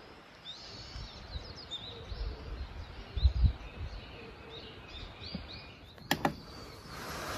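Small birds chirping and twittering outdoors in short, high calls. There are low thumps about three seconds in and a couple of sharp clicks about six seconds in.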